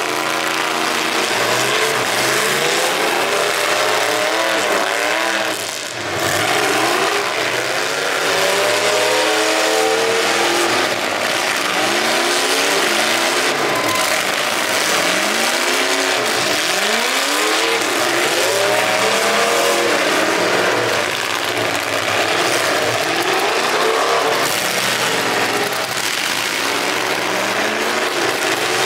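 Several demolition derby cars' engines revving up and down again and again, overlapping, with a few sharp impacts as cars hit each other.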